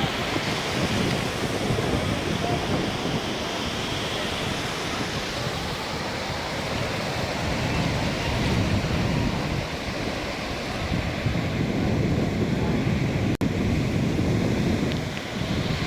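Sea waves washing onto the beach, with wind buffeting the microphone; the sound drops out for an instant about thirteen seconds in.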